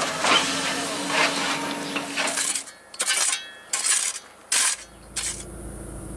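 Hidromek backhoe loader's diesel engine running while its bucket scrapes and clanks through stony soil. About halfway through this gives way to a few short scraping sounds roughly every 0.7 seconds, then a low steady hum.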